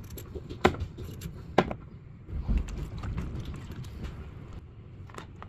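Two sharp knocks about a second apart, then cubed potatoes and water tipped into a bowl with a splash about halfway through.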